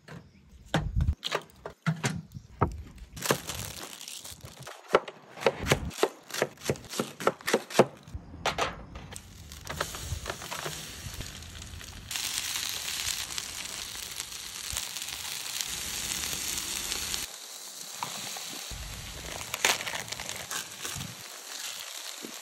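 Clinks, knocks and crinkles of a metal grill grate and an aluminium foil tray being handled on a charcoal grill. About halfway through, a steady sizzle starts as liquid is poured from a bottle onto cabbage in the hot foil tray and dies down after about five seconds. Plastic bag rustling comes near the end as noodles are tipped into the tray.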